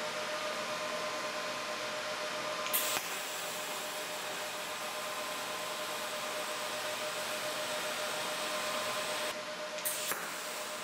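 MIG welding on square steel tubing: a steady hissing arc with a faint steady whine, broken by two short sharp clicks, one about three seconds in and one near the end.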